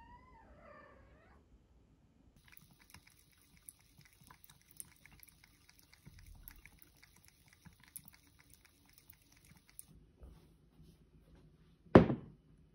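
A cat meowing once at the start. Then a thin stream of tap water runs into a sink while the cat laps at it, with many small clicks of its tongue. About twelve seconds in comes one loud, sharp knock.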